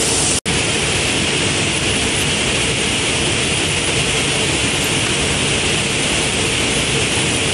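Steady loud rushing air noise of an indoor shooting range's ventilation. It cuts out for an instant about half a second in.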